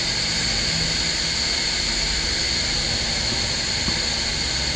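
Steady blowing hiss of a hot air rework station's fan running continuously.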